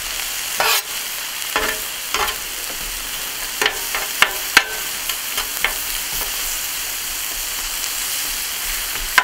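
Vegetables sizzling on a propane flat-top griddle, with a metal spatula scraping and clacking against the steel cooktop as sliced onions and greens are turned. The sharp clacks come several times over the first six seconds or so, then only the steady sizzle goes on.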